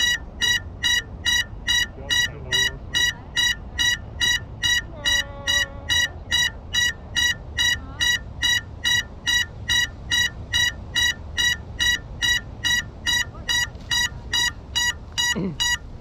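An FPV quadcopter's lost-model buzzer beeping steadily, about two short high-pitched beeps a second: the locator alarm of a crashed, disarmed drone. A faint voice is heard briefly near the middle.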